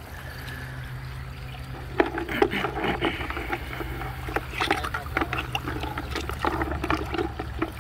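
A hand splashing and rummaging in a bucket of soapy degreaser, liquid sloshing with irregular knocks as the petrified wood slices in it are moved about, starting about two seconds in.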